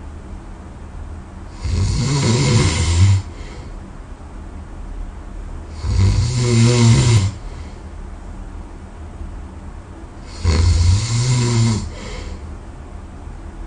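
A person snoring loudly in deep sleep: three long, low-pitched snores about four and a half seconds apart, with quieter breathing between them.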